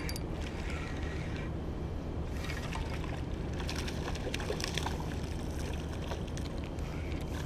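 Small hooked sea bass splashing at the surface as it is reeled in, a run of crackling splashes from about two to five seconds in, over a steady low rumble.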